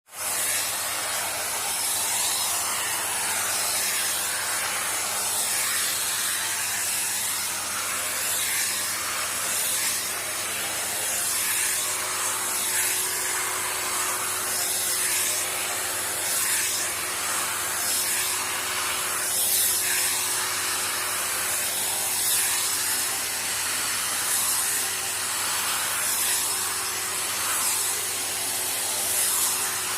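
Vacuum cleaner running steadily: a hissing rush of air over a faint motor hum, swelling and easing every second or two.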